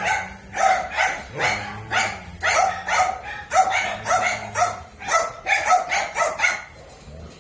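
A dog barking over and over at a quick, steady pace, about three barks a second, stopping shortly before the end.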